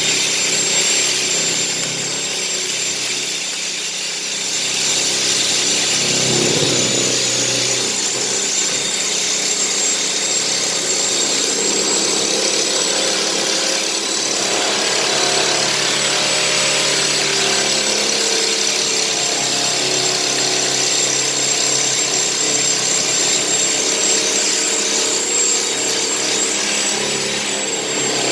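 Electric power tool running continuously on a washing machine's metal drum, with a steady high whine over a harsh grinding hiss.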